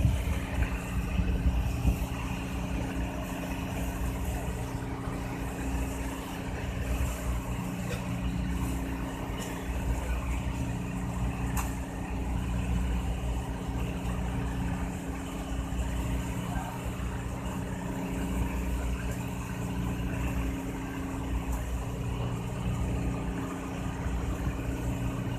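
A wooden fishing boat's engine running steadily under way, a constant low drone, with water rushing along the hull.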